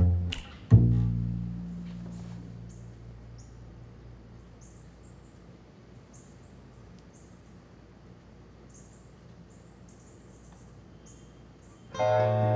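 Soundtrack music ends on a low plucked bass note that rings out. Then small birds chirp faintly and repeatedly in short high notes. Near the end, plucked-string music comes in again.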